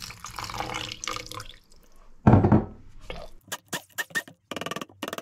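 Water poured from a jug into an air fryer basket of roasted vegetable mash. About two seconds in there is one loud thump, followed by a run of short knocks and clatters.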